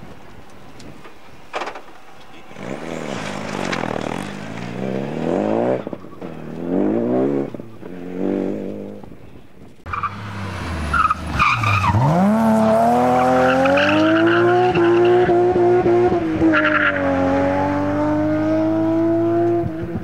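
Rally car engines. First a Renault Clio rally car's engine revs up and down in repeated bursts. Then, about halfway, a BMW E30 rally car comes through: its engine pitch drops and climbs again, then holds at high revs while the tyres squeal as the car slides through the corner and smokes its rear tyres.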